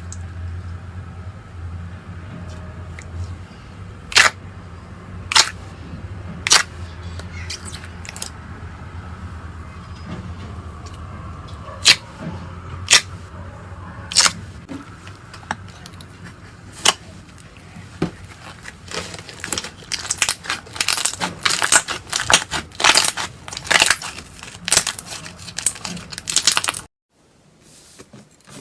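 Slime being squeezed and poked by hand, giving sharp separate pops roughly once a second, then a dense run of rapid crackling pops that cuts off suddenly near the end.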